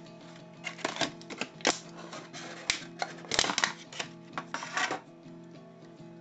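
Clear plastic packaging crackling and the XGEAR multitool's metal parts clicking as the tool is pulled from its tray and handled, a run of short clicks that stops about five seconds in. Quiet background music runs underneath.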